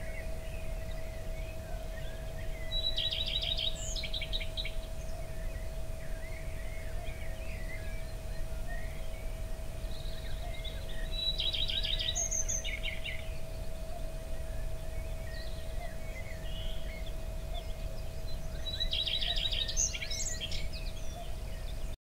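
A songbird sings three short trilled phrases about eight seconds apart, with softer chirps between them. Under the birds there is a steady low rumble of outdoor background noise and a faint steady hum.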